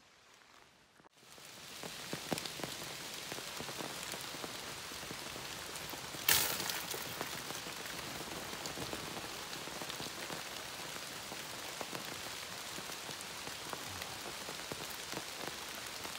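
Steady rain pattering on a tarp lean-to roof overhead, full of separate drops ticking on it, beginning about a second in. About six seconds in, one sudden louder splash of water hits it.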